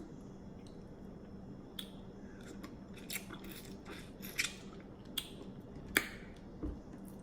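Close-miked eating of seafood: a scattering of short sharp clicks, cracks and wet mouth smacks, starting about two seconds in, with the sharpest ones about halfway through and about a second before the end, over a faint steady hum.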